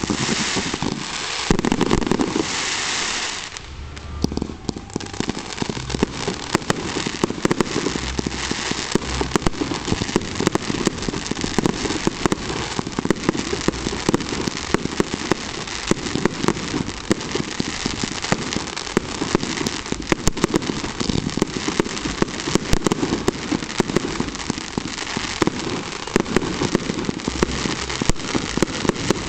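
Fireworks display: a dense, rapid crackle of many small bangs from bursting aerial fireworks. It is louder in the first three seconds, eases off briefly about four seconds in, then crackles on steadily.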